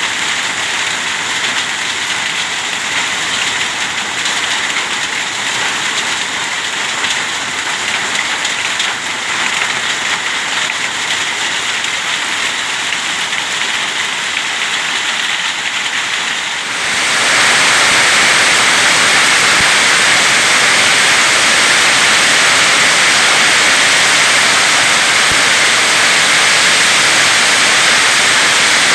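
Heavy rain falling as a dense, steady hiss. About 17 seconds in it abruptly becomes louder and fuller and holds at that level.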